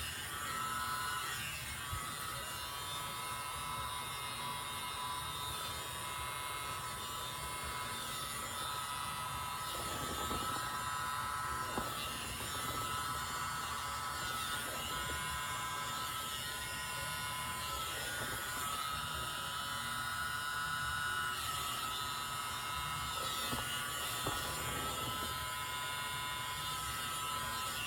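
A miniature battery-powered leaf blower running steadily with a small-motor whir, its pitch drifting slightly, as it blows poured acrylic paint outward into bloom shapes.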